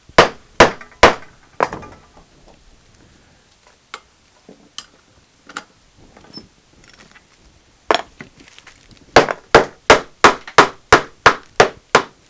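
A mallet striking the top of a freshly clamped end-grain cutting board glue-up: four blows at the start, a pause with a few light knocks, then a quick run of about nine taps, about three a second. The taps knock back down boards that rose as the glue shifted under clamp pressure.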